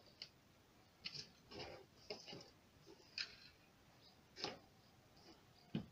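Faint, scattered clicks and taps of small plastic Playmobil helicopter parts being handled and fitted together, one every second or so.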